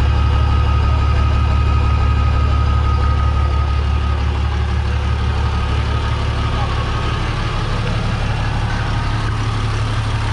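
Chevrolet Silverado's MWM six-cylinder turbo diesel idling steadily, heard close to its large exhaust tip: an even, low rumble with no revving. A thin high whine rides over it for the first few seconds, then fades.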